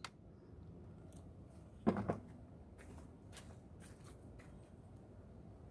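Quiet handling sounds: a short thump about two seconds in as the drone's handheld transmitter is set down, then a string of faint, irregular clicks and light slaps of flip-flop footsteps on a concrete driveway.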